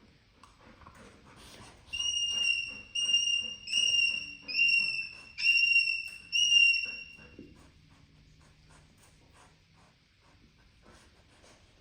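Parrot whistling six short, clear notes in quick succession, each held at one pitch and dipping slightly at its end.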